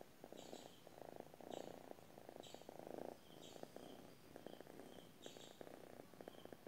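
Domestic cat purring faintly while curled up asleep and being stroked, a low rumbling purr that swells and fades with each breath.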